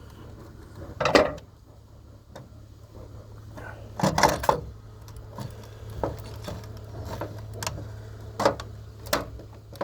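Knocks and clatter of hard plastic parts and tools being handled while a robot vacuum is taken apart, with a loud knock about a second in, a burst of clattering around four seconds, and a few sharper knocks near the end, over a steady low hum.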